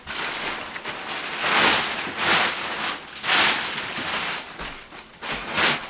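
Clear plastic wrapping crinkling and rustling as it is pulled off a mattress by hand, in several swells about a second apart.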